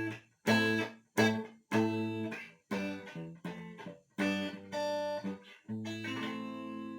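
Guitar played through a mid-range compressor setting: a phrase of picked notes and chords, then a chord struck near the end and left to ring.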